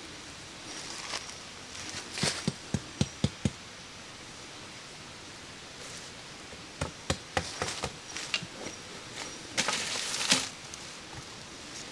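A run of about five sharp knocks in quick succession, like material being tapped or struck by hand. A looser scatter of taps follows later, and there is a brief scraping rustle near the end.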